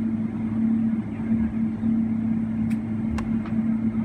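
Boeing 777-300ER's GE90 engines at taxi idle, heard inside the cabin: a steady hum with a low drone. A few light clicks about three seconds in.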